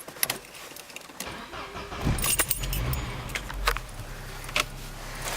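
1994 Audi 80's engine starting about two seconds in, after a few clicks of keys and the ignition, then running steadily, with a few sharp knocks over the running engine. The car has broken engine mounts.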